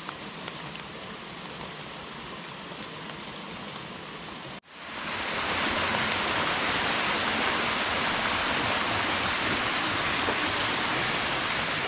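Steady rain falling on the jungle, then, after a sudden cut about four and a half seconds in, the louder, even rush of a waterfall.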